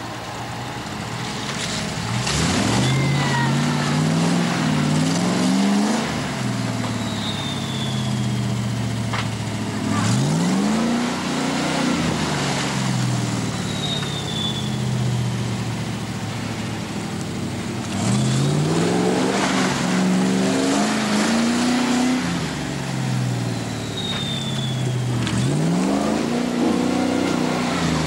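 An off-road 4x4's engine revving hard in repeated bursts as it is driven through deep mud, the pitch climbing with each blip of throttle and falling back between, about four times. A few sharp knocks come in among the revs.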